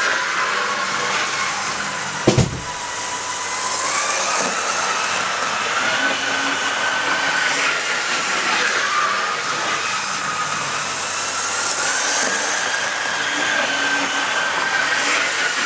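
Model train running on the layout: a thin motor whine that rises and falls in pitch over a steady running noise. A single sharp thump sounds about two seconds in.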